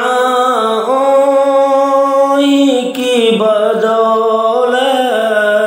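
A man singing a naat, an Urdu devotional poem in praise of the Prophet, solo and without instruments. He draws one word out over several long held notes that step and slide between pitches.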